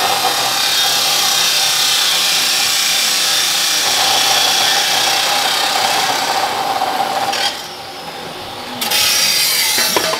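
Abrasive chop saw cutting through steel exhaust tubing, a loud, steady grinding with sparks flying off the wheel. The grinding eases off about three-quarters of the way through, then bites loud again for a second before stopping.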